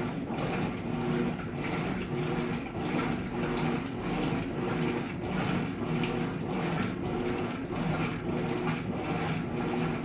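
Electrolux 12 kg top-loading washing machine agitating a load of laundry in water: a motor hum that breaks off and resumes every second or so, over a steady rhythmic swishing of water.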